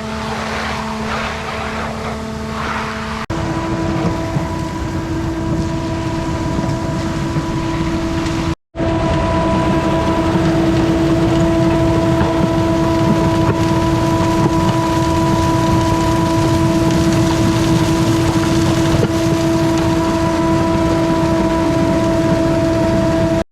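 An engine running steadily at a constant speed, a loud even drone with a steady hum. It cuts out for a split second about eight and a half seconds in, and its tone shifts abruptly about three seconds in.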